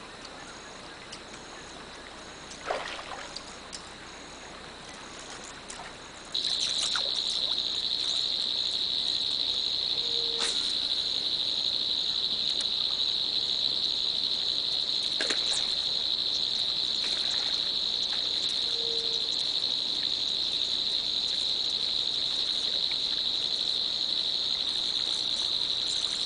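An insect trilling in one steady, unbroken high note. It starts up loud and close about six seconds in, over a fainter one before it. A few short knocks come through the trill.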